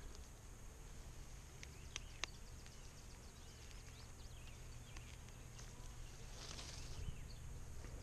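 Faint, steady low hum of a honey bee swarm clustered in a peach tree, with a few sharp clicks of hand pruning shears snipping branches about two seconds in and a brief rustle of leaves near the end.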